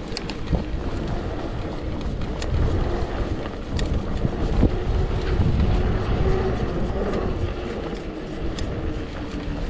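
A Trek Slash 7 mountain bike riding a dirt singletrack trail: a steady rush of wind buffeting the microphone mixed with tyre and drivetrain noise, and a few sharp clicks and knocks along the way.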